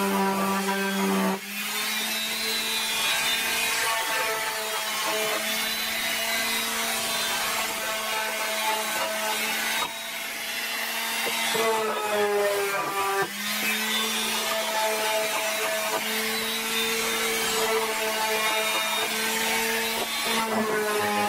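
Electric random orbital sander running on a wooden board, a steady motor hum with a rasping hiss of abrasive on wood. Its pitch shifts a few times, around the start, about twelve seconds in and near the end.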